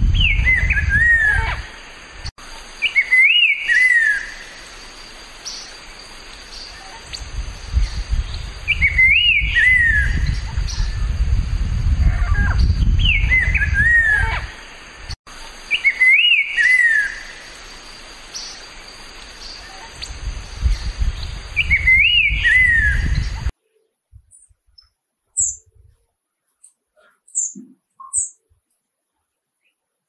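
A slate-colored grosbeak sings a short whistled phrase, a rising-and-falling note followed by lower slurred notes, repeated every few seconds over a low rumble. About two-thirds of the way in the recording cuts to a quieter one with a few short, very high chips of a blue dacnis.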